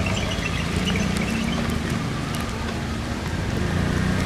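Racing quad bike (ATV) engine running at a steady low pitch as it rides the track, its note rising a little for a couple of seconds in the middle.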